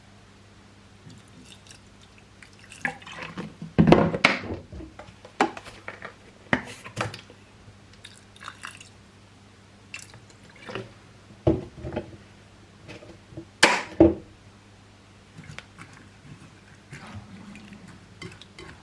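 Household clatter: a dozen or so irregular knocks and clinks, like dishes or utensils being set down and handled, the loudest about four seconds in and again near fourteen seconds, over a faint steady low hum.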